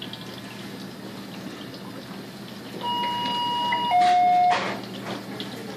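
Electronic alert tones from neonatal intensive care equipment. About three seconds in, a steady beep sounds for about a second, then steps down to a lower, louder tone for half a second before cutting off, over a low steady hum.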